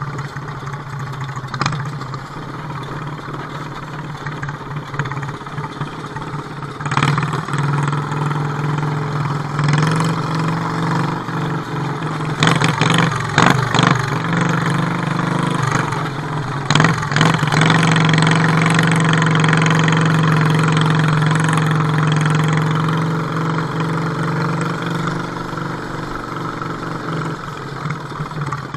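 Wheel Horse garden tractor engine running steadily as the tractor drives over snowy ground, with several sharp knocks or rattles in the middle and the engine growing louder for a few seconds after them.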